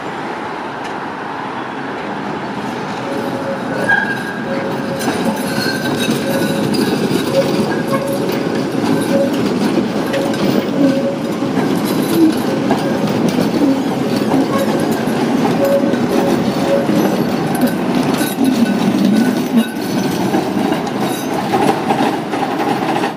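Tatra T5C5 trams running on street track: a steady rumble of wheels on rail, a held whine through the middle, and scattered clicks as wheels cross points and rail joints.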